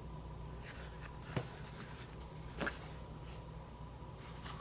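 Quiet rustling of paper sticker sheets being handled, with two light taps, the first about a second and a half in and the second a little over a second later.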